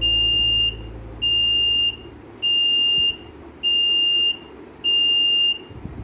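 Vacuum leak tester's panel buzzer beeping five times, a steady high-pitched tone about once every 1.2 seconds with each beep under a second long. It signals that the chamber has reached its set vacuum of −720 millibar and the 35-second hold timer is running.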